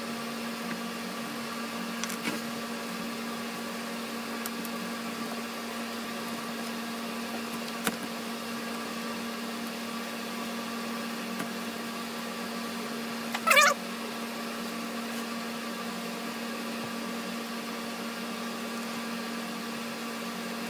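A steady, even hum with a few faint clicks, and one short wavering high-pitched cry about two-thirds of the way through.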